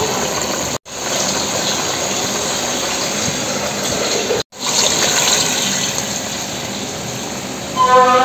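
Steady hissing and bubbling of a pot of pulao and a pan of kadai cooking on gas burners. It drops out for an instant twice, and near the end there is a short voice-like sound.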